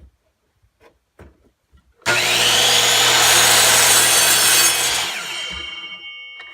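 Kobalt 7 1/4-inch sliding miter saw starting abruptly and making an angled cut through wood for about three seconds, then the motor winding down. A few light clicks and knocks come before it starts.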